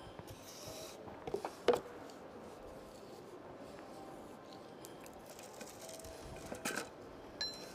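Wooden jig frames and boards being handled and set down on a wooden workbench: a few light wooden knocks, the loudest about two seconds in and another pair near the end, with faint rustling between.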